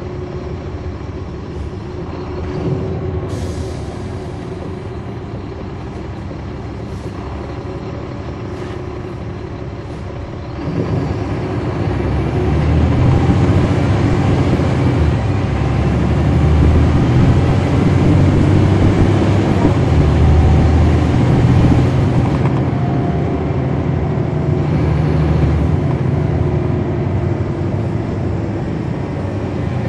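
Inside a 2009 NABI 416.15 transit bus: its Caterpillar C13 ACERT diesel runs steadily, then about ten seconds in it suddenly revs up and pulls the bus away under load for around ten seconds, with a faint whine rising as it gathers speed. It eases off near the end.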